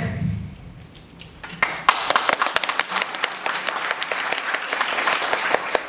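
Audience applauding, a dense patter of many hands clapping that starts up about two seconds in and carries on steadily.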